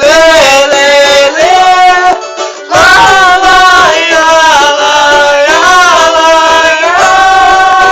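Pagode music with a cavaquinho strumming under a gliding, sustained melody line, in a break between sung verses.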